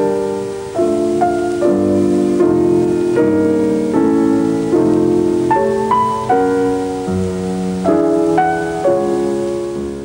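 Piano music: a steady succession of struck, sustained chords.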